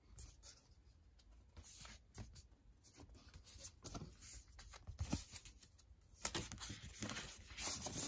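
Faint rustling and light taps of a cardboard vinyl record jacket being handled and opened, with paper and card sliding against each other. The rustling gets busier near the end as the record comes out of its sleeve.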